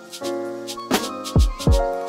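Background music: keyboard chords over a beat of sharp percussion taps, with deep bass thumps that drop in pitch, two of them in the second half.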